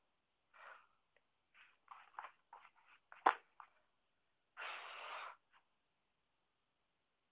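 Sheets of paper being handled: a run of short, soft rustles, a sharp click about three seconds in, then a longer rustle of paper sliding about a second later.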